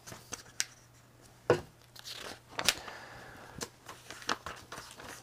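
Pages of a large paper instruction booklet being handled and turned: scattered soft rustles and short, sharp paper clicks.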